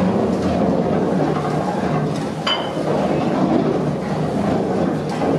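Large iron gear wheels and flywheel of a mill's drive turning at speed: a steady rumbling clatter of meshing teeth, with a single sharp metallic clink about two and a half seconds in.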